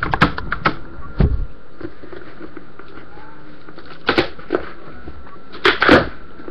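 Packing tape and a cardboard box being torn open by hand: a few short rips and crinkles near the start, then two more, about four and six seconds in.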